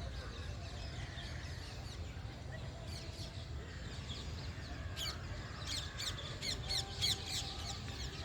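Birds chirping among trees: scattered high chirps, then a dense run of quick repeated chirps through the last few seconds, over a steady low rumble.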